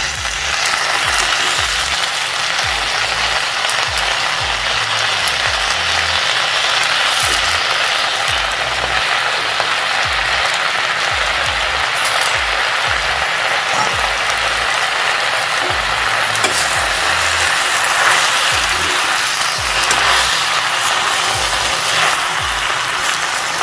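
Freshly washed black nightshade (manathakkali) leaves sizzling steadily in hot oil in a steel kadai as they are stirred with a spatula. The water on the leaves hitting the oil sets off the sizzle.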